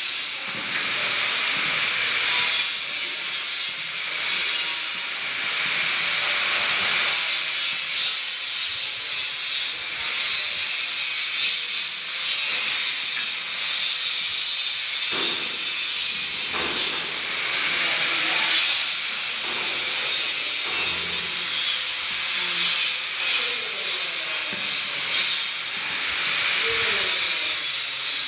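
A steady hiss runs under repeated scraping cuts as the hand-lever blade of a tender coconut cutting machine slices the husk off a green coconut.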